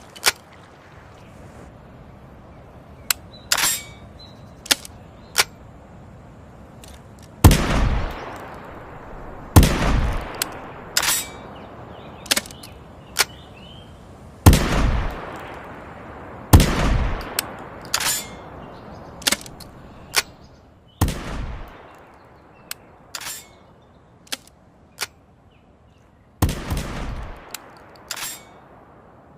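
Olympia shotgun sound effect: six loud shots, each trailing off in a long echo, the first four in two pairs about two seconds apart. Between the shots come sharp metallic clicks and clacks of the gun's action being worked.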